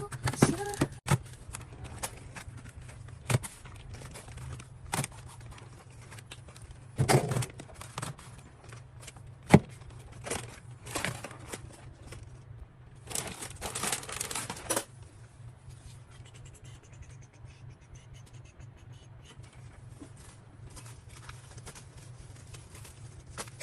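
Food packaging and plastic containers being handled while stocking a fridge: scattered clicks and taps, crinkling, and a rustle lasting about two seconds around the middle, over a low steady hum.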